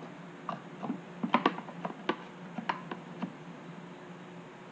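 Plastic one-handed trigger clamp being worked and set against a plywood panel: irregular small clicks and taps, dying away about a second before the end.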